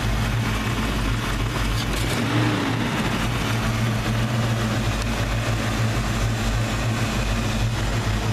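A 1992 Ford Mustang's 5.0-litre V8 idling steadily while it warms up, with one brief rise and fall in pitch about two seconds in. It is running again after a no-start caused by a distributor pickup that was rubbing; the pickup is now wedged in place.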